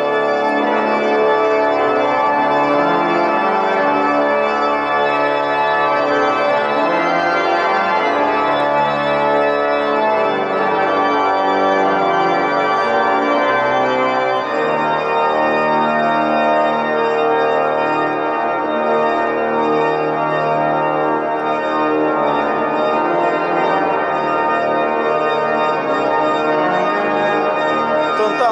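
Church pipe organ playing slow, sustained chords that change every few seconds, heard from the nave below the organ gallery.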